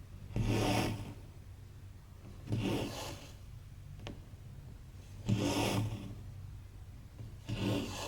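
Embroidery thread being drawn through cross-stitch fabric: four pulls, each about half a second long, roughly every two to two and a half seconds. A faint click comes about four seconds in.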